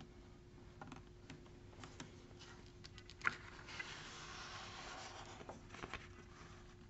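Hardcover picture book being handled and a page turned over: a few light clicks, a sharp tap a little past three seconds, then the paper swishes over for about two seconds, with a couple more taps as it settles.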